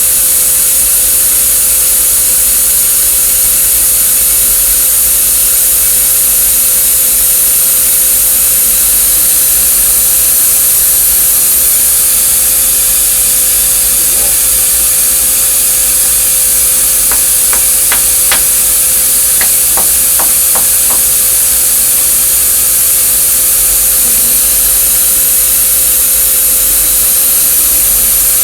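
A steady loud hiss with a constant hum, and partway through a quick run of about eight light taps: a dead blow hammer tapping a milling vise into alignment while it is indicated.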